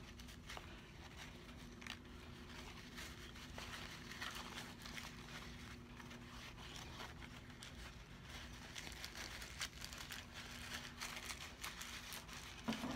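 Faint, intermittent rustling and crinkling of a paper towel being handled and wiped, with small scattered ticks.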